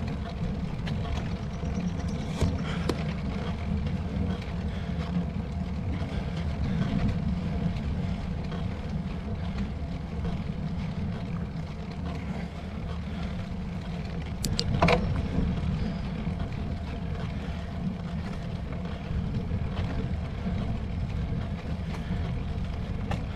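Steady low rumble of wind on the microphone and road-bike tyres rolling on asphalt during a climb, with one short sharp sound about two-thirds of the way in.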